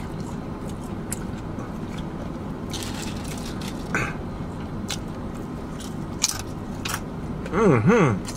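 Tortilla chips crunching as they are bitten and chewed, heard as scattered sharp crackles over a steady car-interior hum. Near the end comes a short closed-mouth "mm-mm" hum of enjoyment, its pitch wavering up and down twice.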